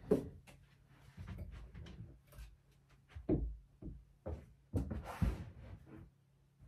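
Rummaging through clothes and storage in a built-in wardrobe: fabric rustling and a scattering of soft knocks and thuds against the shelves, with a longer rustle about five seconds in.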